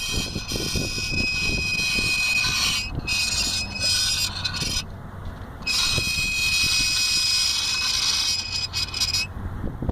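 Bent metal brake disc guard rubbing on the turning brake disc of a Vauxhall Astra H with the wheel off, giving a loud, high-pitched metallic squeal. It comes in a long spell of about three seconds, a broken stretch, then a second long spell; the squeal is the sign of the dust guard bent inward and touching the disc.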